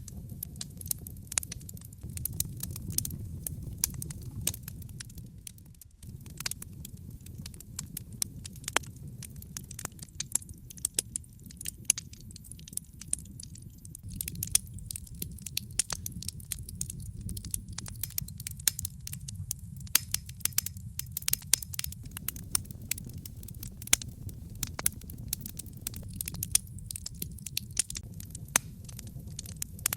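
Wood fire burning in a fireplace: a steady low rumble of flame with frequent, irregular sharp crackles and pops from the burning logs. The sound dips briefly about six seconds in.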